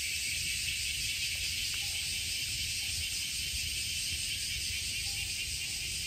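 Chorus of cicadas singing in a steady, unbroken high-pitched drone.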